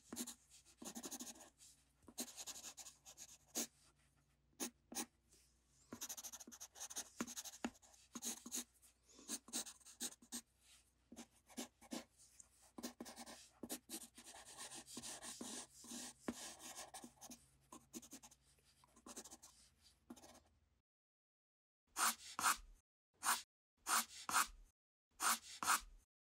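Graphite pencil scratching on paper: soft, quick sketching and hatching strokes, then, after a short break near the end, a run of separate, firmer strokes about two a second.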